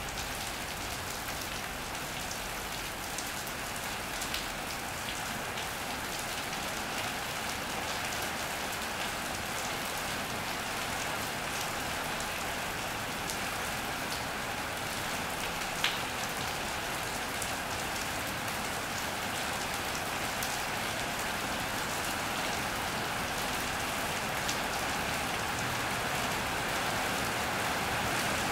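Steady rain falling on an iron roof and wet paving, with individual drops ticking close by and one sharper tap about halfway through. The rain grows slightly louder toward the end.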